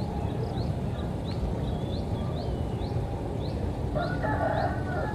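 Outdoor ambience with a steady low rumble, over which a bird repeats short, high, rising chirps about twice a second. A louder animal call joins about four seconds in.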